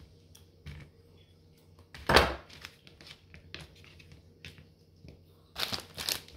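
A kitchen knife knocking against a plastic cutting board as cheese is cut, a few separate knocks, the loudest about two seconds in. Near the end a plastic cheese wrapper crinkles as it is handled.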